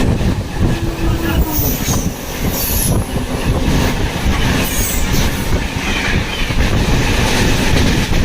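Passenger train running along the track: a steady rumble of the wheels on the rails, with brief high-pitched wheel squeals a couple of times.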